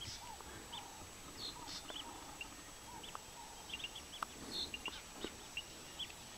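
Faint chorus of small wild animals calling: many short, high chirps scattered throughout, with a few lower notes and light ticks among them.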